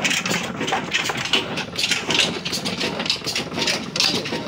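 Old stationary engine running steadily with a rhythmic beat, driving a mustard oil expeller by belt while the seed is crushed.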